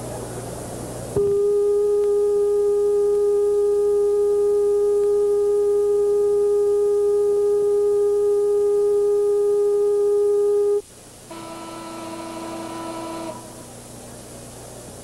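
A loud, steady electronic tone starting about a second in and held unchanged for about ten seconds, then cutting off. After a brief gap, a second, lower tone with several overtones sounds for about two seconds.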